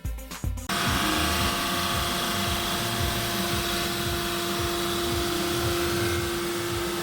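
Powermatic PM2244 drum sander running at a steady pitch, a continuous mechanical hum with an even rushing noise; it cuts in abruptly under a second in.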